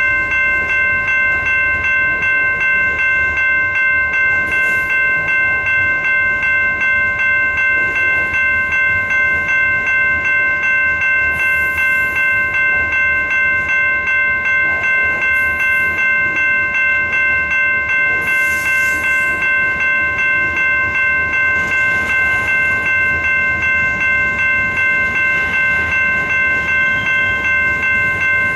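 Railroad grade-crossing warning bell ringing steadily, about two strikes a second, while a freight train's cars roll past with a low rumble.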